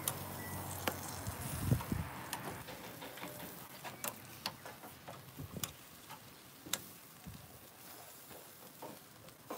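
Metal barbecue tongs clicking and tapping on a charcoal grill's grate and the meat as it is turned, in irregular sharp clicks over a faint steady hiss from the grill.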